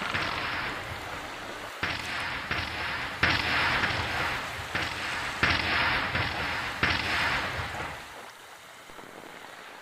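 Fireworks bursting: about seven sharp bangs in quick succession, each trailed by crackling, dying away near the end.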